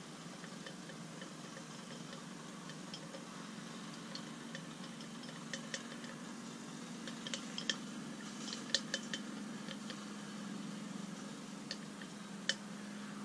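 Scattered light clicks and taps of a container and utensil as paint is thinned and mixed, over a steady low hum. The clicks bunch together a little past the middle, with one more near the end.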